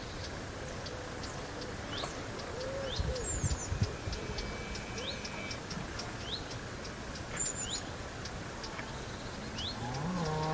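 Small birds chirping over a steady outdoor hiss, with a few low thumps a few seconds in; near the end a cow starts a low moo that rises in pitch.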